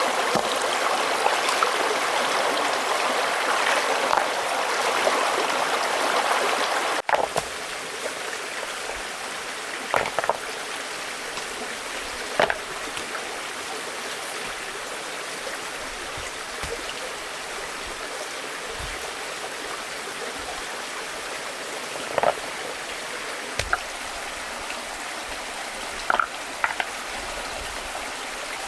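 Water flowing steadily, like a forest stream. It drops to a quieter flow about seven seconds in, and a few short sharp clicks or knocks stand out over it afterwards.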